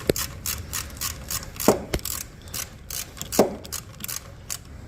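Ratchet wrench clicking in quick strokes while a bolt is worked, with a heavier clunk about every second and a half.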